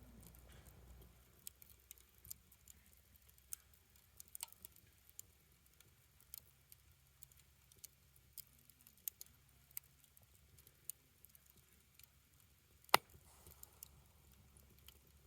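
Fire crackling: irregular sharp pops and snaps scattered through, with one much louder pop about thirteen seconds in.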